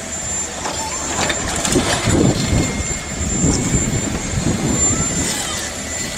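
John Deere 1910G forwarder's diesel engine running and its hydraulic crane working as the grapple lifts a bundle of logs and swings it toward the pile. The low rumble grows louder from about two seconds in, with a few short knocks early on.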